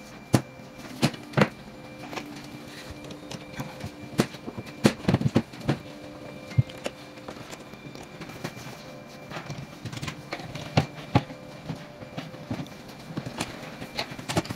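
Irregular knocks, taps and clicks of MDF dresser panels and drawers being handled, screwed together and fitted during assembly.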